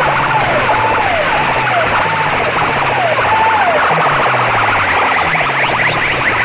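Electronic siren-like sound effect blasted very loudly through clusters of horn loudspeakers. A falling tone repeats about every three quarters of a second, then gives way about four seconds in to a flurry of fast rising chirps.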